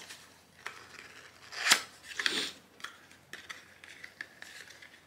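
Small cardboard gift box being handled and pried open with the fingers: scattered light clicks and rustles, with two louder tearing noises near the middle, the first the loudest.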